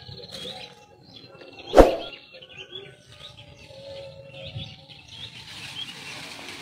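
Birds chirping in the trees, many short high chirps scattered throughout; a single sharp knock about two seconds in is the loudest sound.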